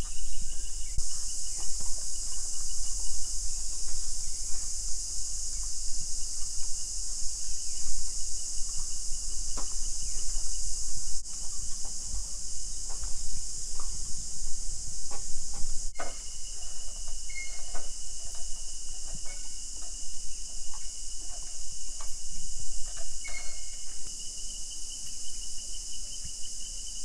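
Rainforest insect chorus: a dense, steady, high-pitched buzz with a trilling insect pulsing beneath it. Scattered light clicks and knocks are heard throughout.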